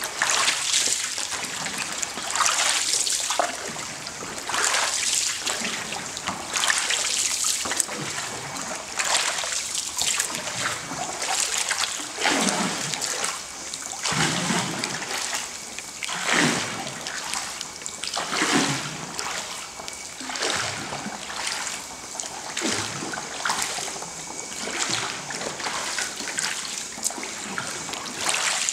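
Bamboo pole dipping and splashing into deep, still creek water, pushing a bamboo raft along in a steady rhythm of about one stroke every two seconds, with water dribbling off the pole between strokes.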